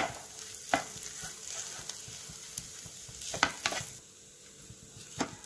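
Wooden spatula stirring and scraping a mashed potato and onion masala in a frying pan over a light sizzle, with about five sharp knocks of the spatula against the pan.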